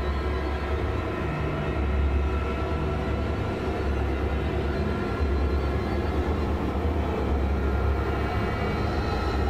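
Dark, ominous soundtrack drone: a deep, steady rumble under a dense wash of noise.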